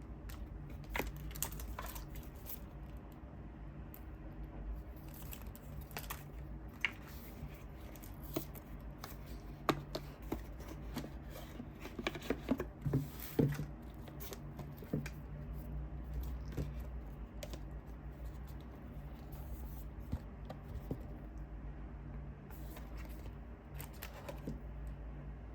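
Packaging and books being handled: scattered rustles, taps and scrapes, with a cluster of sharper clicks about halfway through, over a steady low hum.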